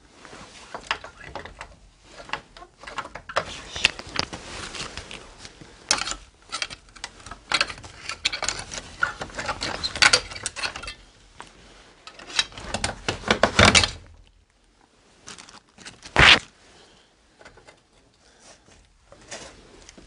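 Close handling noise: rustling and scraping with many small knocks and clicks as things are pushed and gripped in a cramped space, busiest in the first two thirds. One sharp, louder knock comes about 16 seconds in.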